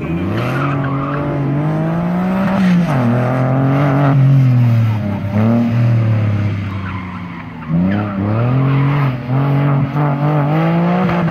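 Porsche 996 Carrera 4S flat-six engine revving hard under acceleration, pitch climbing then dropping sharply twice as the driver lifts between cone sections, with tire squeal as the car is thrown through the turns.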